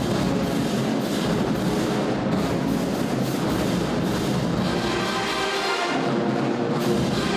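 Band playing brass and drums with a steady beat.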